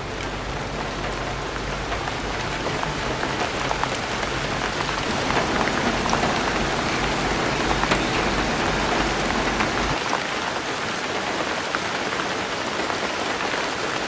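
Steady rain falling on a surface, with scattered individual drops ticking through it.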